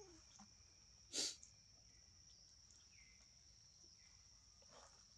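Near silence with a steady high-pitched insect drone. A short hissing burst comes about a second in, and a fainter one near the end.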